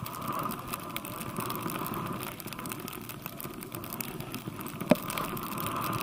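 Steady hiss of a rider sliding through deep powder snow, with one sharp knock about five seconds in.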